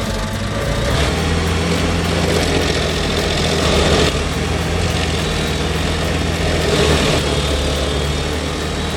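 Stump grinder's engine running steadily, with noisier swells about four and seven seconds in.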